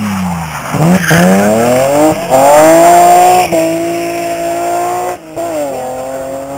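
Rally car engine at high revs: the pitch falls briefly, then climbs steeply as the car accelerates hard away and holds high. A short break about five seconds in, like a gear change, after which it runs on at a slightly lower pitch.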